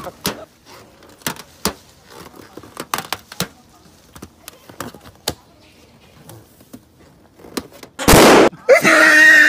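Rubber balloon squeaking and clicking faintly as a macaque bites at it, then bursting with a loud bang about eight seconds in. A loud wavering cry follows straight after the pop.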